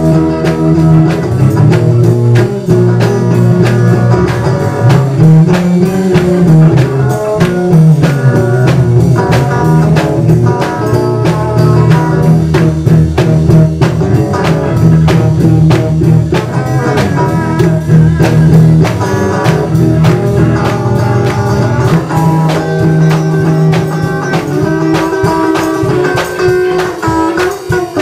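Small live band playing: guitar played over a drum kit keeping a steady beat, with sustained low notes underneath.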